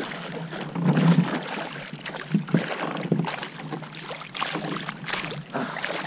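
Hooked smallmouth bass thrashing and splashing at the surface beside a kayak in irregular bursts as it is brought to the landing net.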